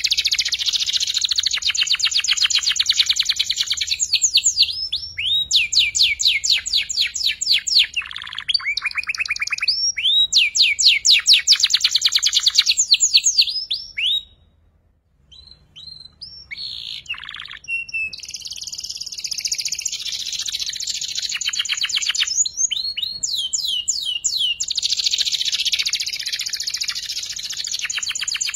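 Young canary singing, practising its fast 'ngeriwik' trill: long runs of rapid repeated high notes and rising chirps. It breaks off briefly about halfway, then starts again.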